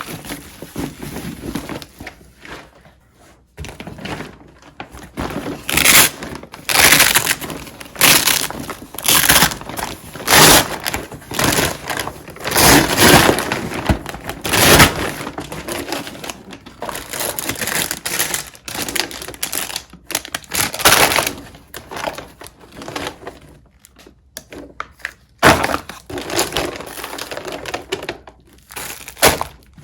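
Repeated, irregular crunching and crackling noises, each a short burst, coming in uneven clusters with brief pauses between them.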